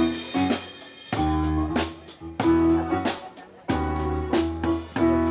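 Instrumental passage of a pop song played live by a band: repeated struck chords over bass and drums, with no singing.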